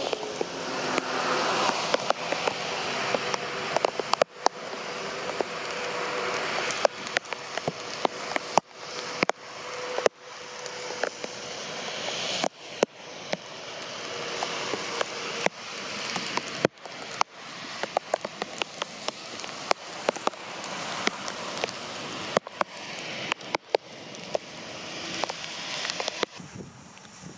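Heavy rain pouring down, with large drops striking close to the microphone as many sharp, irregular taps over a steady hiss. The hiss drops away suddenly near the end.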